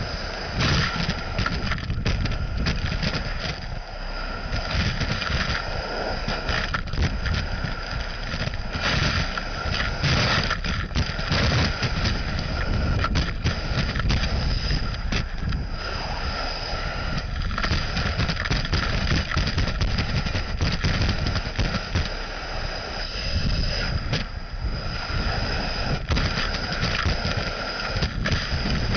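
Gutter vacuum system running with a steady rushing roar and a high whine as its hose nozzle sucks moss and debris out of a roof gutter. Irregular clicks and rattles come from debris striking the nozzle and hose.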